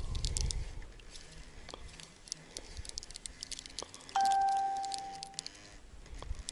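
A single clear ding about four seconds in, ringing on one pitch and fading away over about a second and a half, over faint rapid high ticking.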